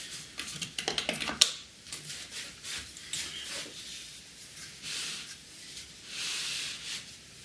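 Plastic spring clamp being opened and fitted onto the edge of a plywood sled: a run of clicks and rattles ending in a sharp snap about a second and a half in. After that come quieter rubbing and scraping as hands handle the sled.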